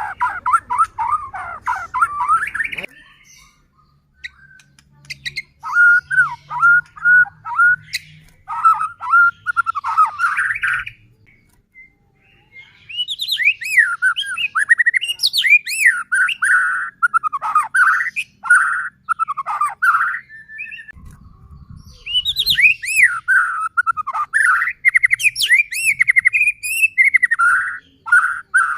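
White-rumped shama (murai batu) in full, vigorous song: fast phrases of swooping chirps, whistles and crackling notes, broken by short pauses.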